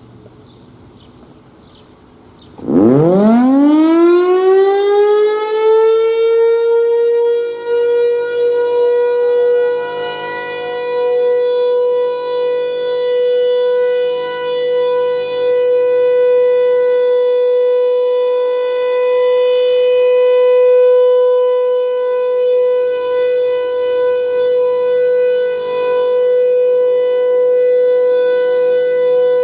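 Federal Signal Thunderbolt 1000 civil defense siren winding up about three seconds in, its pitch climbing quickly and then holding one steady tone: the Alert signal. It is loud, with small swells and dips in level while the tone holds.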